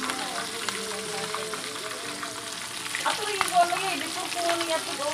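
A whole fish deep-frying in hot oil in a wok, the oil sizzling and crackling steadily.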